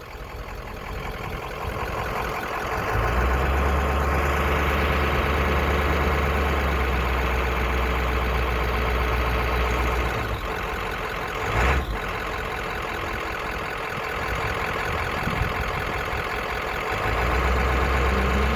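Truck engine idling, heard from inside the cab. It is a steady rumble that swells about three seconds in, eases off around ten seconds, and comes back near the end.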